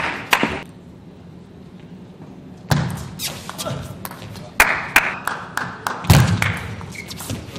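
Table tennis rallies: the ball knocking sharply and irregularly off the bats and the table, with a quieter gap of about two seconds early on.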